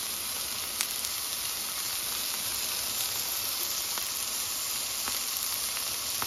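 Chicken tikka skewers sizzling in oil in a wide frying pan: a steady hiss with a few faint crackles. The meat's released water has cooked off, so the chicken is now frying in the oil.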